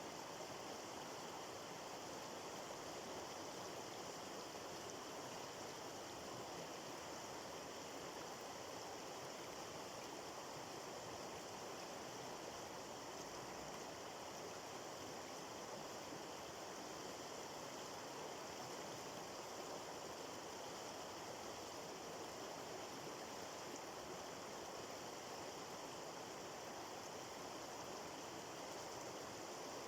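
A stream of water running steadily, an even rushing without breaks or changes.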